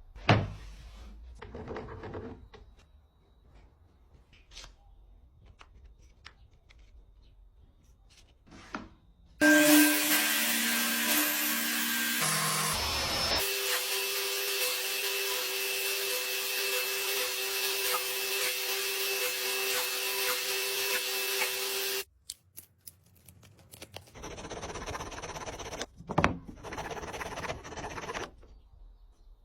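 Woodworking sounds: a sharp knock on wood, then a power tool runs loudly for about twelve seconds with a steady whine whose pitch shifts a few seconds in, before cutting off suddenly. A few seconds of softer rubbing on wood follow near the end.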